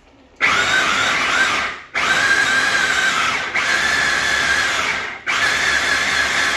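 Electric mini food chopper whizzing tomatoes and green chillies into a paste. Its motor is switched on about half a second in and run in several pulses of about a second and a half each, with short breaks between, a steady high whine.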